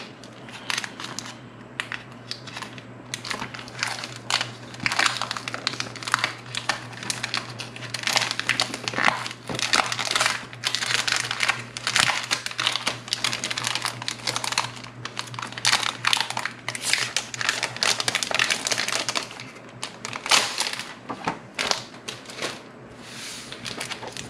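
Thin plastic wrapping crinkling and crackling in irregular bursts as it is pulled off a stack of paper planner inserts, with a steady low hum underneath.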